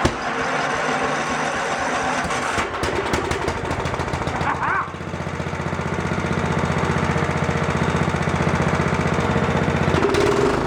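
Riding lawn mower engine, with its muffler just refitted, running: uneven for the first few seconds, then settling into a steady, evenly pulsing idle about five seconds in.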